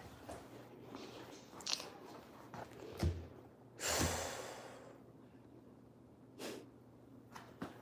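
Handling noise from a phone held against clothing as it is carried: a few knocks, and about four seconds in a loud rush of fabric rubbing over the microphone that fades over about a second.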